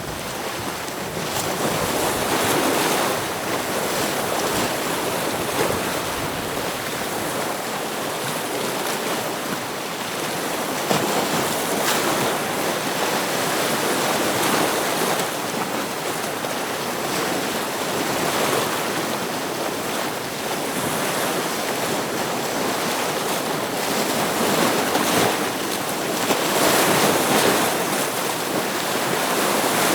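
Ocean waves breaking against rocks, a continuous rush of surf that swells and eases every few seconds.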